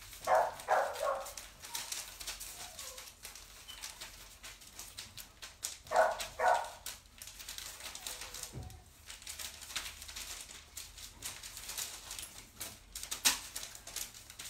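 A dog barking in two short bursts of a few barks each, one at the start and one about six seconds in, with scattered sharp clicks between them.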